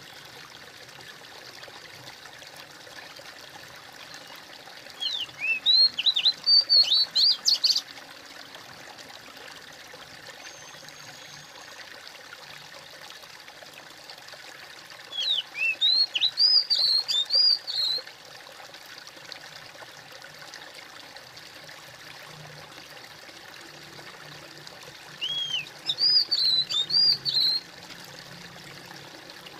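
Steady trickling, babbling water. Over it a songbird sings three short phrases of rapid, high chirping notes about ten seconds apart, louder than the water.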